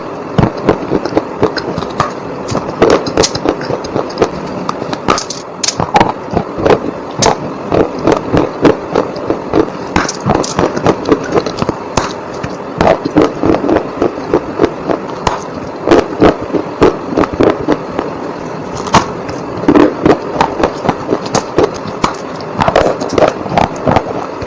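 Close-miked bites into crunchy bars, one after another: crisp cracking snaps and crunching over a steady background hiss.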